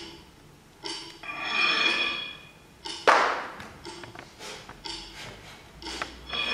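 Metallic clanks and pings repeating irregularly, with a ringing swell about a second in and one loud clang about three seconds in that rings away.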